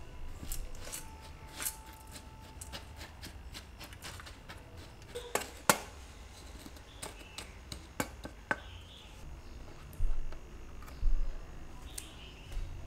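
Biscuit crumbs being spread and pressed into a metal springform pan with a silicone spatula and then a wooden spoon: soft scraping and crunching with scattered sharp taps against the pan, and two louder dull knocks near the end.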